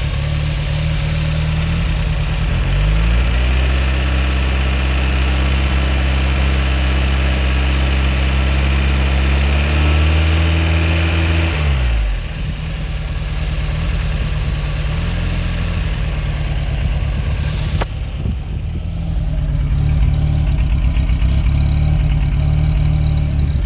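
Fiat X1/9's four-cylinder engine idling rough. About three seconds in it is revved up and held at a raised speed, climbs further near the middle, then drops back to the rough idle, with one short blip a few seconds later.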